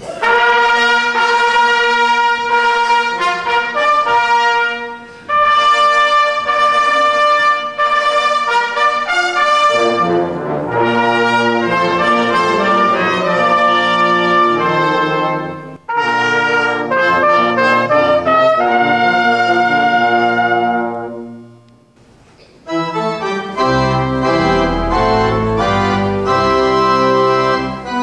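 Instrumental church music in slow held chords. A deep bass line comes in about ten seconds in, and the phrases break off briefly about 5 and 16 seconds in, with a longer pause just before the last phrase.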